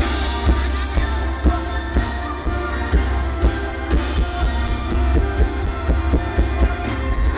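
Band music with a drum kit keeping a steady beat over a heavy bass.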